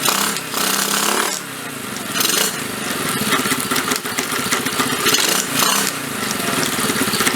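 Pit bike's single-cylinder engine idling with its left case cover off, rattling. The rattle is the flywheel moving forwards and backwards on a loose retaining bolt.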